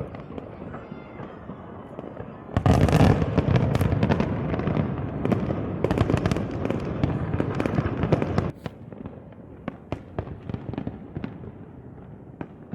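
Fireworks going off: a rapid run of cracks and bangs that swells into a loud, dense barrage a few seconds in, then thins to lighter crackling about two-thirds of the way through.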